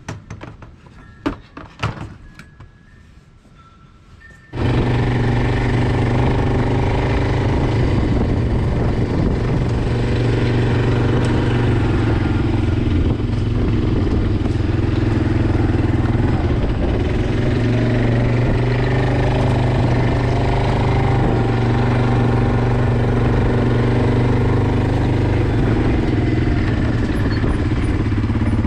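A few light knocks, then about four and a half seconds in, a chainsaw's small two-stroke engine starts sounding abruptly and runs loud and steady at a constant pitch.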